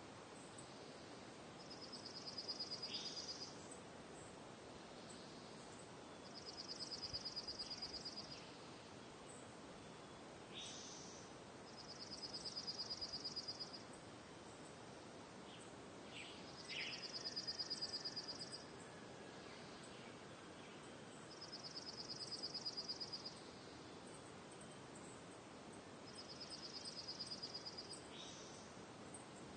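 Faint night nature ambience: a high, fast-pulsed trill about a second and a half long repeats six times, roughly every five seconds, with a few short chirps between, over a steady hiss.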